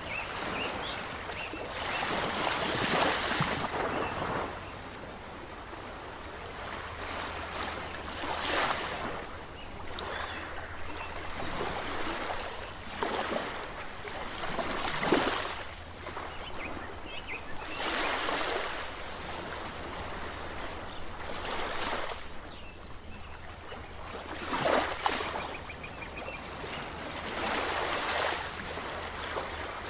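Ocean waves breaking and washing in. The surf swells up and falls away every three to four seconds, with some surges louder than others.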